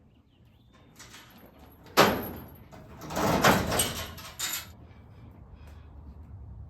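A door being opened: a sharp bang about two seconds in, then a second or so of rattling knocks and clatter.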